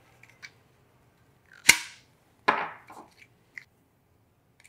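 Push-button latch of a Peak Design Travel Tripod ultralight foot being pressed and the foot pulled from the tripod leg: two sharp clicks a little under a second apart, with a few faint ticks of handling around them.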